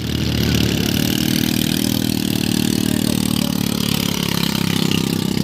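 Quad bike (ATV) engine running steadily at idle close by, a rapid even putter.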